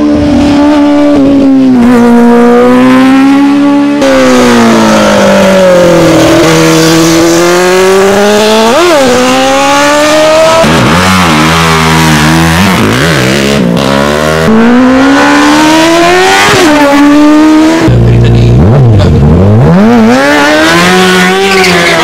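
Racing motorcycle engines at high revs, one bike after another in short clips, among them a Honda 600 and a small Tesi 190 pit bike. The pitch climbs with the throttle through each gear and drops on the downshifts.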